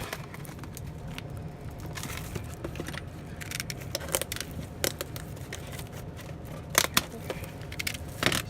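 A cardboard trading-card blaster box being torn open and its wrapped packs handled: irregular sharp crinkles, clicks and tearing, with a few louder snaps near the end.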